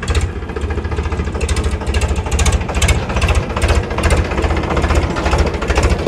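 Diesel tractor engine running with a fast, even knocking beat.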